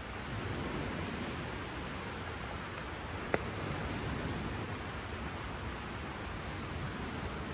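Steady, even rushing noise, with one sharp click about three seconds in.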